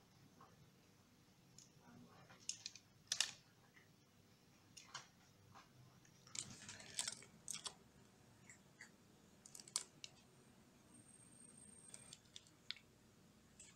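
Faint, scattered clicks and soft rustles of hands handling a chocolate alfajor and its crinkly plastic wrapper, the sharpest click about three seconds in and a brief run of rustling between six and eight seconds.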